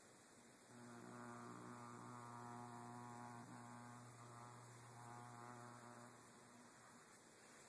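Electrical buzz from the lid of an HP Pavilion dv6 laptop as a fingertip is lightly run across it while the laptop is plugged in, a sound like an electrical discharge. A low hum with a raspy stack of overtones starts about a second in and stops near the end.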